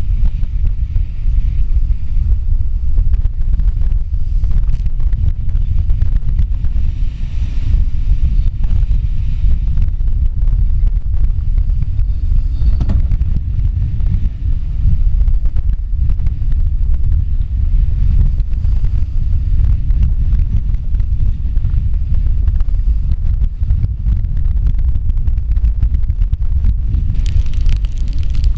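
Storm-force wind of about 50 to 55 knots buffeting a stern-mounted GoPro's microphone, a loud constant low rumble, over the rush of breaking waves and spray along a sailboat's hull. The higher hiss of water swells briefly near the end.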